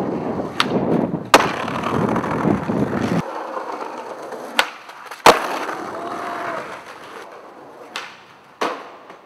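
Skateboard wheels rolling on concrete pavement, then sharp clacks of the board's wooden deck striking the ground as tricks are popped and landed. The loudest clacks come about a second and a half in and about five seconds in. The rolling rumble cuts off suddenly about three seconds in.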